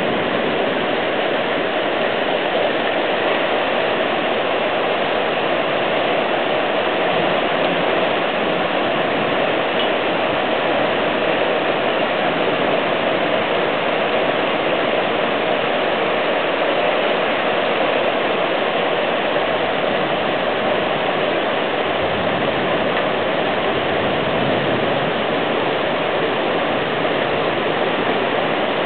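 Floodwater rushing steadily through a normally dry drainage creek that is running in flood.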